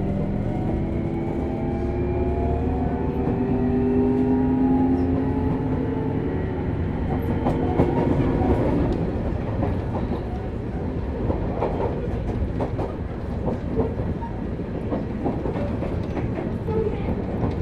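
Hitachi GTO-VVVF traction motors of a Sotetsu New 7000 series car giving a rising, multi-tone whine for the first several seconds, in the car known for its unusual motor noise. The whine then fades, leaving steady wheel rumble and the clatter of wheels over rail joints.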